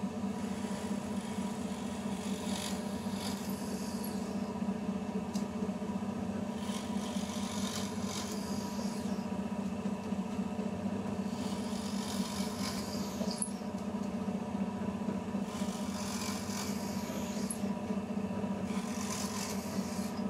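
Lumberjack DP13-580B bench drill press running steadily at medium speed with a 4 mm bit, its motor hum constant, while it bores into scrap timber five times, each cut a hiss of wood chips lasting about two seconds.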